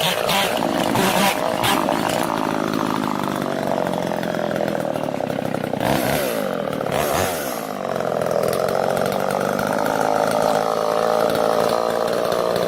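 Old Homelite two-stroke chainsaw running steadily, its engine pitch falling away and climbing back up about halfway through.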